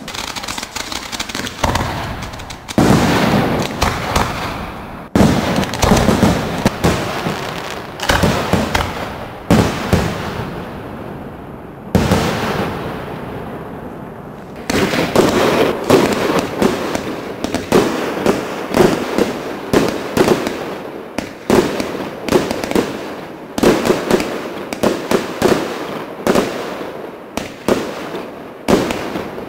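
Fireworks display: a dense, loud run of sharp bangs and crackles from aerial shells bursting overhead. It eases briefly about halfway through before picking up again.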